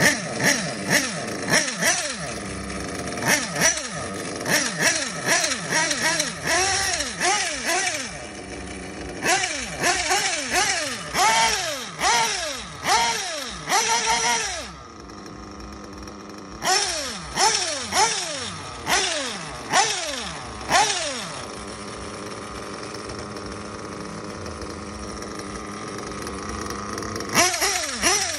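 O.S. Speed Adam Drake nitro engine in an HB D817 1/8-scale buggy, revved again and again in short throttle blips that rise and fall in pitch, about one and a half a second. It drops to a steady idle briefly past the middle and again for several seconds after about twenty seconds in, then the blips start again near the end.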